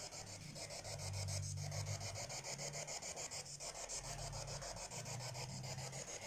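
Faint hiss pulsing at an even, fast rate, about eight to ten pulses a second, over a low uneven hum, with rubbing noise from the recording phone being handled.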